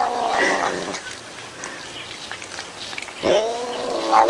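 Domestic cat yowling in long, drawn-out moans. One call trails off about a second in, then after a quiet stretch a new yowl rises and grows louder near the end.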